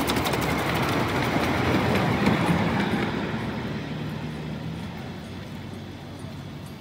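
Ride-on miniature train running past on its track, the rumble of its wheels growing to a peak about two seconds in and then fading as it moves away.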